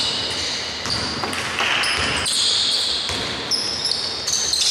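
Indoor basketball game: sneakers squeak in short high-pitched bursts on the court, the ball bounces, and players' voices carry in the hall's echo.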